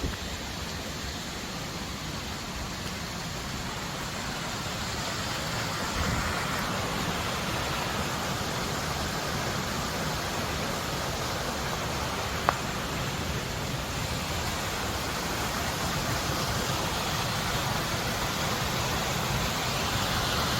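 Steady rush of flowing water, a little louder from about six seconds in, with one sharp click about halfway through.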